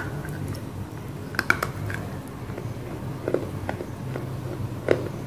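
Crisp crunches of a piece of roasted black Punjab clay (edible mitti) being bitten and chewed. Sharp separate cracks come near the start, twice about a second and a half in, again around three and a half seconds, and once loudly near the end.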